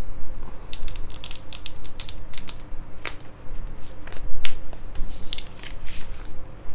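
Clear plastic shrink-wrap being peeled and pulled off a cardboard iPhone box: a quick run of sharp crinkles and crackles, the loudest about four and a half seconds in.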